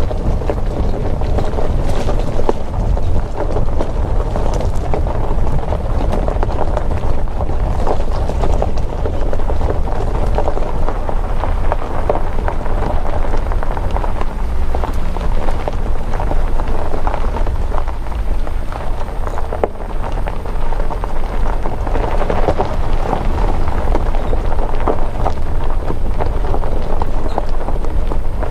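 Car driving on a gravel road: tyres crunching over loose stones with a dense patter of small stone clicks, over a steady low rumble from the car.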